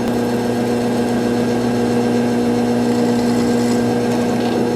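Wood lathe running at a steady speed, its electric motor giving a constant hum.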